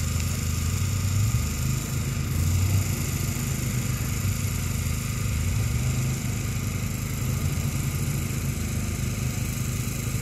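Competition 4WD's engine running under load on a rough off-road section, its note swelling and easing as the driver works the throttle.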